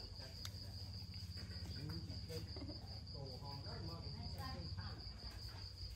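An insect trilling steadily in a high, evenly pulsing tone, over a faint low hum.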